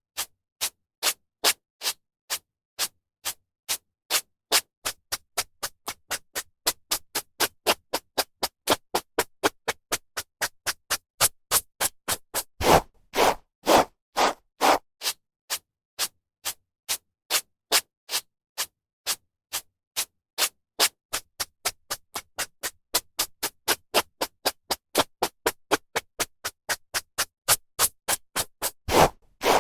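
Hairbrush strokes through hair, a steady series of short brushing sounds about two to three a second with brief pauses between them. A few longer, louder strokes come around the middle and again near the end.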